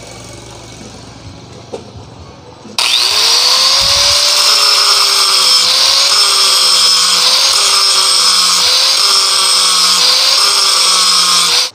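Electric angle grinder switched on about three seconds in, whining up to speed, then grinding steel plate, its pitch dipping briefly about every one and a half seconds as the disc is pressed into the metal. It stops abruptly at the end.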